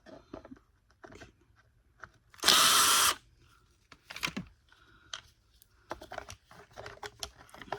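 Cordless drill-driver run once for under a second to back out a screw, with small clicks and knocks of plastic parts being handled around it.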